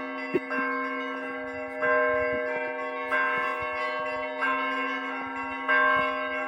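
Cathedral church bells ringing. A bell is struck about every second and a quarter, each stroke ringing on over a steady low hum.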